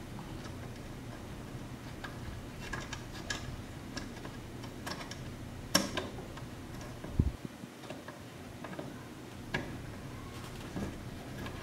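Light, scattered clicks and taps of screws and a rear diffuser fin being handled and threaded in by hand under a car's rear bumper, with a sharper click about six seconds in and a dull low thump just after it.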